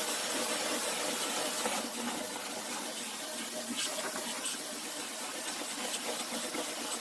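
Dyson V10 cordless stick vacuum running steadily at medium suction with its anti-mite brush head passing over a bed, with a steady hiss of airflow.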